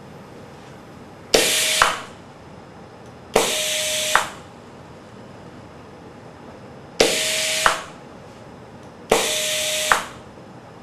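Koganei pneumatic air cylinder stroking back and forth as its valve is switched: four strokes, each a hiss of compressed air lasting roughly half a second to a second, opening with a sharp click and ending with a knock. The iB Flow controller is automatically adjusting the exhaust-side flow, which sets the cylinder's speed.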